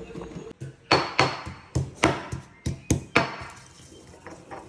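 Food being pounded by hand in the kitchen: about eight sharp knocks in quick, uneven succession over some two seconds, then stopping.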